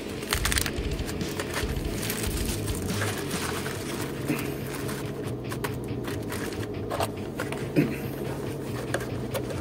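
Handling of Mini 4WD kit parts and their cardboard boxes: light clicks, taps and scraping as plastic parts are put back into a box, the lid is closed and the next box is picked up. A low steady hum runs underneath.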